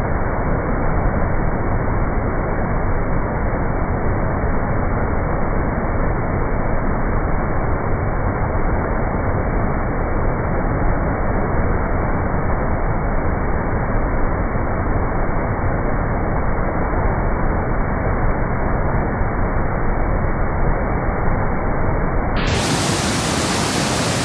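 Rushing water, a steady, unbroken noise. About 22 seconds in, it turns brighter and hissier.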